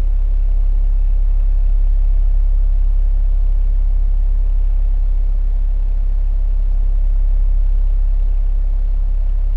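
Household heat pump running: a steady low hum and rumble that holds an even level throughout.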